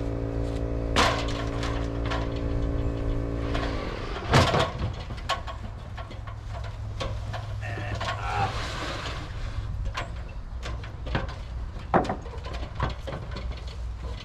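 An engine running steadily at idle, with a steady hum on top that cuts off about four seconds in. A few sharp knocks and clunks come over it, the loudest just after the hum stops.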